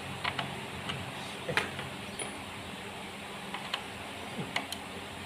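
Scattered light metallic clicks and clinks of a bolt and hand tools being handled at the timing-gear housing of a stripped diesel engine block, over a steady low hum.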